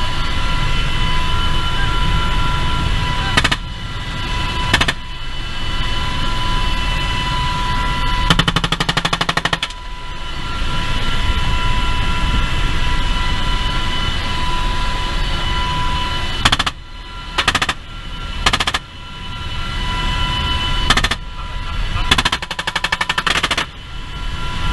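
Bursts of machine-gun fire over the steady turbine whine and rotor noise inside a UH-60 Black Hawk's cabin. There are a few single shots and two longer rapid bursts, about 8 s in and again near the end.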